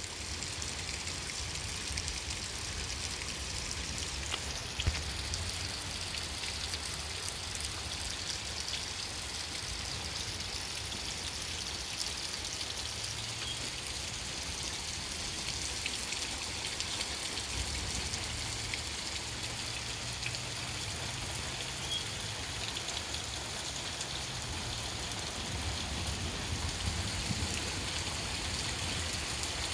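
Steady heavy rain falling in a thunderstorm downpour, an even hiss of drops with a faint low rumble coming and going underneath.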